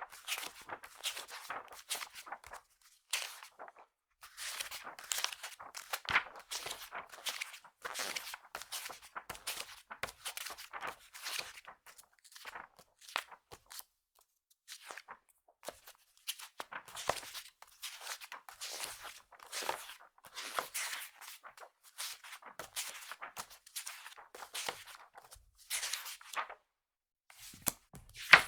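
Magazine pages being flipped fast: rapid, crisp paper flicks and rustles in long runs, broken by a few brief pauses.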